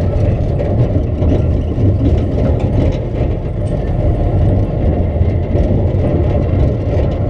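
Steady low rumble of a roller-coaster car running along its track, with wind buffeting the microphone of a camera fixed to the car.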